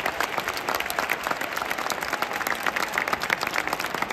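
Football supporters in a stadium applauding: many hands clapping at once in a dense, uneven patter, without a clear beat.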